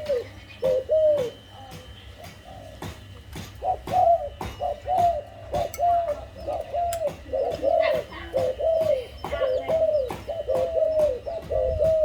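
Zebra dove cooing: a run of short, clipped coos, each rising then falling, about two a second, breaking off for a couple of seconds near the start before going on without a pause.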